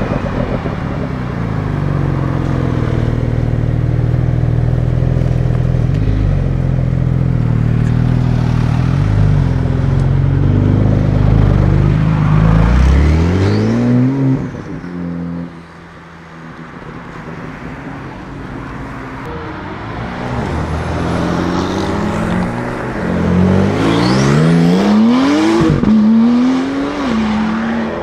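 Porsche 992 Turbo S's twin-turbo flat-six breathing through an Akrapovic titanium exhaust: a steady low engine note at low revs, then rising sharply as the car accelerates away about halfway through. After a quieter stretch, a car accelerates hard near the end, its engine note climbing and dropping back several times through the upshifts.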